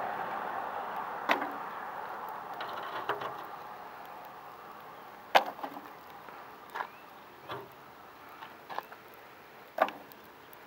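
A rushing noise fading away over the first few seconds, then scattered sharp clicks and knocks, about eight in all, the loudest about halfway through and another near the end.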